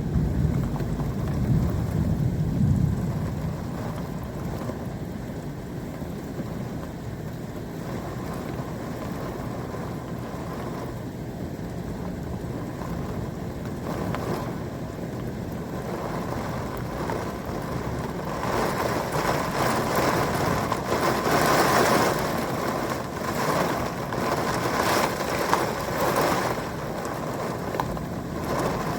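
Thunderstorm: a low thunder rumble dies away over the first few seconds, leaving steady rain. Past the middle the rain and wind swell into a louder, gusting rush for several seconds, then ease back.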